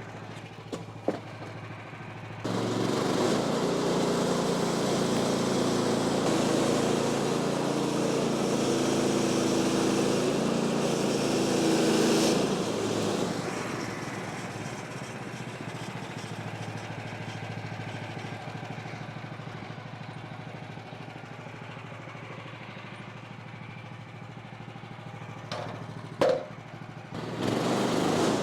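Woodland Mills HM126 bandsaw sawmill's engine running. It throttles up about two and a half seconds in and runs loud for about ten seconds, then settles back to a lower, steady speed. Near the end there is a sharp knock, and then it revs up again.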